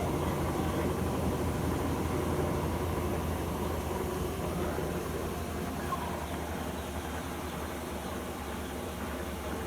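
Electrolux LF75 washing machine in its spin cycle: the motor and drum run with a steady low hum and rumble.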